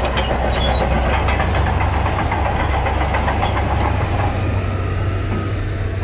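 Shantui crawler bulldozer's diesel engine running steadily as it pushes sand: a constant low drone with a rattle over it.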